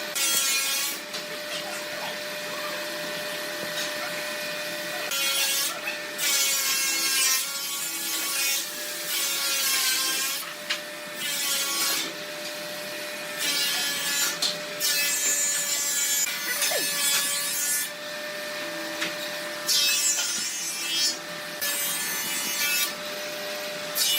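A power tool running with a steady whine, repeatedly working into wood: about a dozen loud, noisy passes of a second or two each, with the bare tool running in between.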